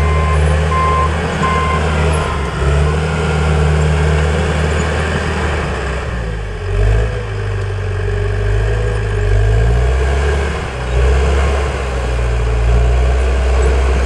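John Deere 450H crawler dozer's diesel engine working hard as it pushes against a tree, its pitch rising and falling every few seconds with the load. A backup alarm beeps steadily for about the first second and a half.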